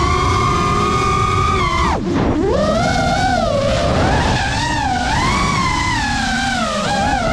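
FPV quadcopter's brushless motors whining, the pitch rising and falling continuously as the throttle changes. About two seconds in the whine drops sharply and climbs straight back: a throttle cut and punch during freestyle manoeuvres.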